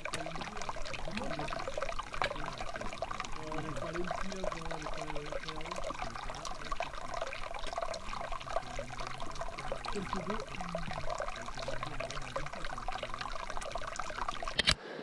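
Running water trickling and pouring steadily, with faint voices of a group talking in the background.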